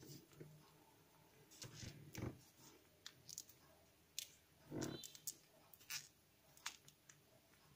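Faint crinkles and clicks of a sheet of origami paper being folded and creased by hand, in scattered short bursts.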